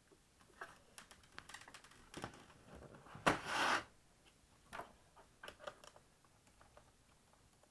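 Handling noise from a plastic laptop chassis: small clicks and taps as it is turned over, then a knock and a brief scrape a little over three seconds in as it is laid face down on the desk, followed by a few light clicks.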